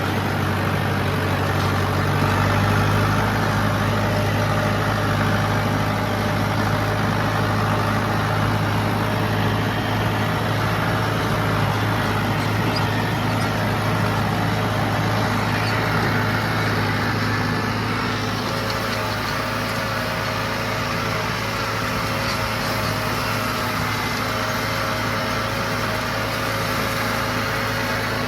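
John Deere 4030 tractor's diesel engine running steadily under load while pulling a hay baler, easing off slightly about two-thirds of the way through.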